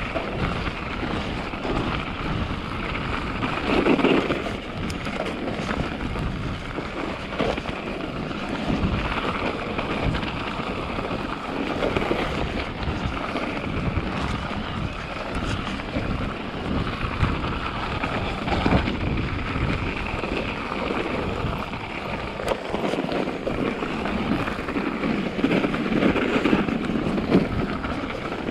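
Mountain bike riding over a snow-covered trail: steady wind rumble on the microphone with tyre noise on the snow and frequent small knocks and rattles from the bike over bumps.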